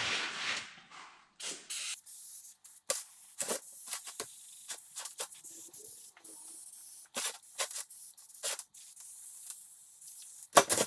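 Degreaser sprayed onto a Stihl MS290 chainsaw's housing: a hiss of spray at the start and again briefly, then a steady high hiss broken by many short squirts and taps.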